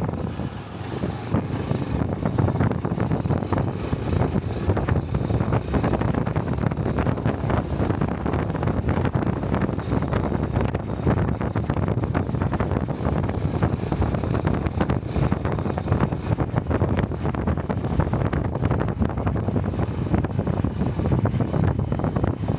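Wind buffeting a helmet-mounted microphone over the steady running of a small single-cylinder Honda Cub motorcycle while riding. The sound dips briefly in the first second or two, then holds steady.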